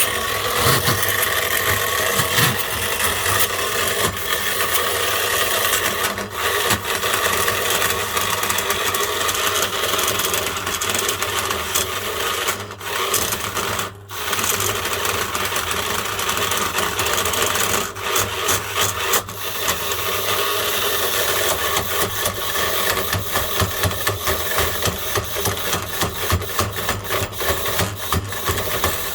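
Sewing machine motor running overvolted on 400 V with a failed bearing, giving a loud, rough grinding rasp that is briefly interrupted about halfway through.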